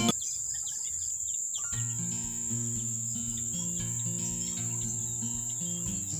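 Insects chirring steadily in one high, even tone, with soft background music coming in about two seconds in.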